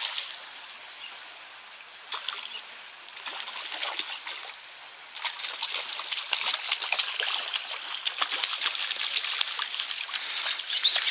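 A hooked trout thrashing and splashing at the surface of the water as it is reeled in. The splashing comes in short bouts at first, then turns loud and nearly continuous from about five seconds in as the fish is drawn to the bank.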